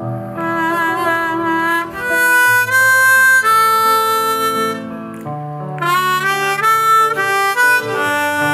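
Ten-hole diatonic harmonica in the key of G playing a slow melody of long held notes.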